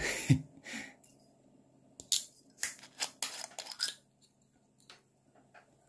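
Eating from a bowl of bibim-myeon with chopsticks: a sharp click just after the start, then a quick run of short crisp sounds about two to four seconds in.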